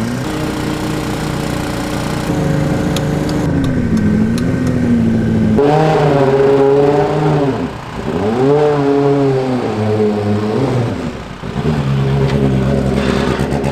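A turbocharged four-cylinder racing engine, the 4A-GE in an Atlantic formula car, running at a steady note, then pulling harder from about five seconds in. Its pitch drops sharply twice as the revs fall and climb again.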